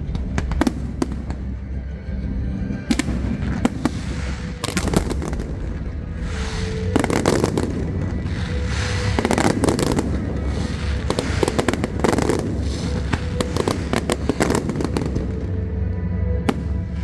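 Aerial fireworks bursting in rapid succession, many sharp bangs and crackles, over music played through loudspeakers.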